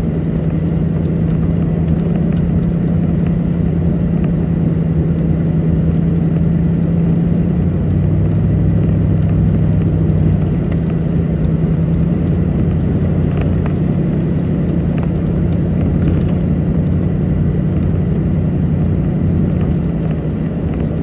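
Vehicle engine and road noise heard from inside the cab while driving at a steady speed, a continuous low drone that shifts in pitch for a couple of seconds about eight seconds in.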